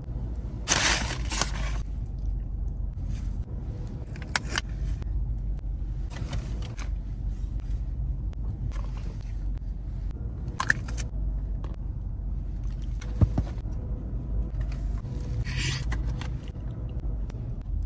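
A steady low rumble with scattered brief rustling and scraping noises and a few sharp clicks.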